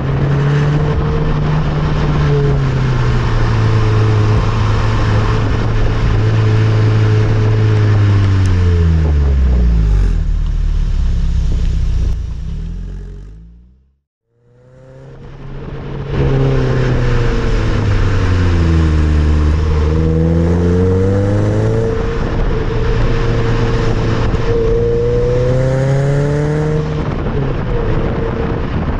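Exhaust note of a Nissan Note Nismo S's 1.6-litre four-cylinder while driving. On the stock stainless muffler it holds a steady pitch, then falls away as the car slows and fades out about halfway. It comes back on a Nismo titanium muffler, dipping, then rising as the car accelerates, then steady again.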